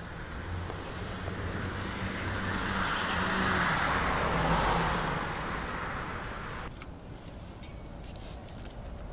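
A road vehicle passing on the street: its noise swells for a few seconds, then fades, over a steady low hum of traffic.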